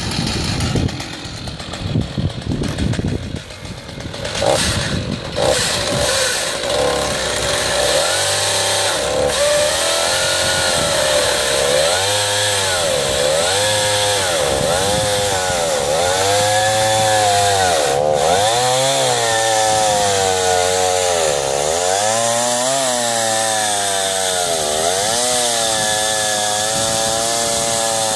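Two-stroke chainsaw on an Alaskan chainsaw mill ripping lengthwise through a log. After several seconds of uneven, broken-up noise it settles into a steady cut, its engine pitch dipping and rising every couple of seconds.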